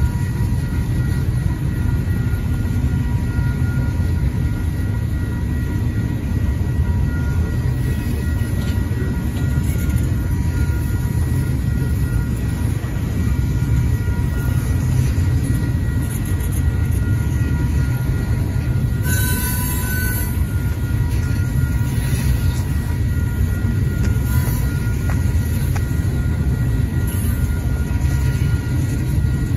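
Two freight trains passing at once: the tank cars of an oil train rolling through a level crossing and a double-stack container train on the bridge above, a steady low rumble of wheels on rail. A thin steady wheel squeal runs under it, with a short sharp screech about two-thirds of the way through.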